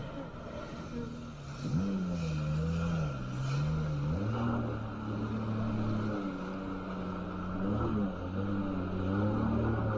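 Jet ski engine running under way, its pitch climbing and easing as the throttle is worked, over the rush of water spraying off the hull.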